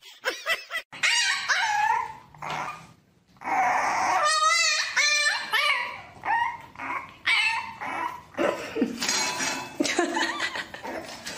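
French bulldog puppy whining and yelping: a string of high, wavering cries with short pauses between them, one of them a quick warble about halfway through.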